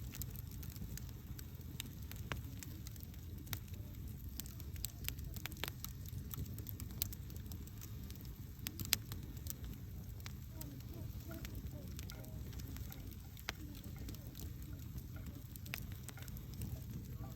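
Wood campfire burning with a steady low rumble of flames and frequent sharp crackles and pops, two of them louder about seven and nine seconds in.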